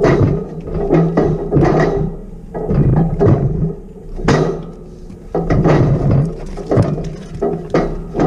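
Metal cattle crush rattling and clanging as heifers shift and push inside it: a run of loud irregular knocks and clatters, over a steady low hum.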